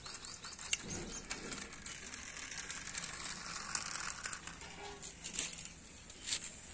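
Scattered light clicks and rustling over a faint steady hiss.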